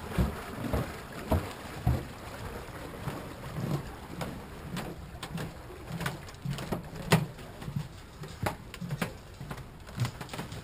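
Footsteps on snow-covered wooden dock boards, an uneven run of low thumps. In the second half, sharp clicks and knocks come from the boat's plastic winter enclosure and its door frame being handled.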